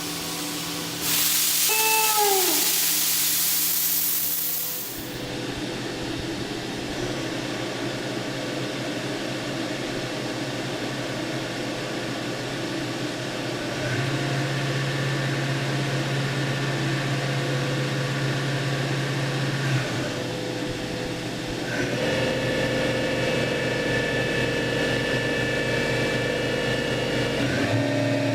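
Fadal VMC 4020HT CNC vertical mill running: a loud burst of air hiss in the first few seconds, with a whine falling in pitch, then a steady machine hum and whine that steps up in pitch and level several times.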